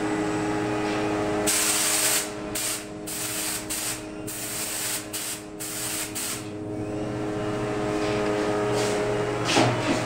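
Compressed-air spray gun hissing as it sprays primer onto the panel's edges: one longer burst about a second and a half in, then a run of short bursts that stop about six and a half seconds in. A steady mechanical hum runs underneath, and a brief bump comes near the end.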